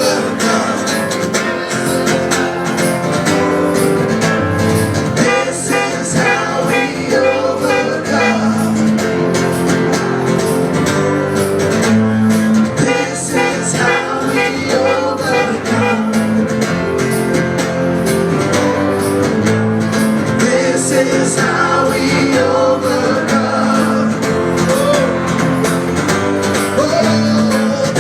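Worship band music: guitar and other instruments playing steadily over a regular beat, with singing.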